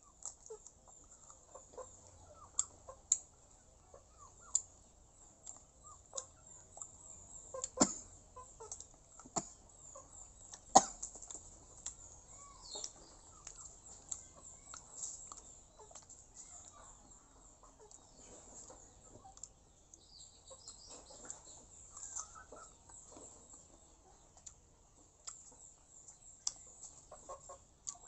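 Someone eating small crunchy fruit: sharp bites and cracks every second or two, with quieter chewing between them.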